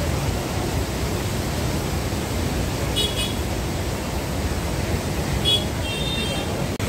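Rushing floodwater of a river in spate, a steady low noise throughout. Short vehicle-horn toots sound over it about three seconds in and again near the end.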